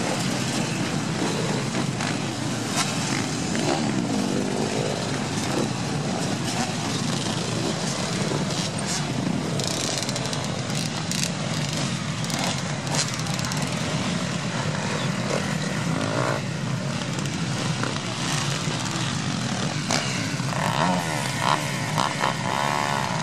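Many motocross bikes' engines running together in a dense, steady din as a large field of dirt bikes rides off in a mass start. Single bikes rev up and down close by, most plainly near the end.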